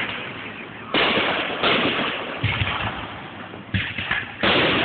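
Fireworks going off: about five sharp bangs at uneven intervals, each trailing off in a fading crackle and echo.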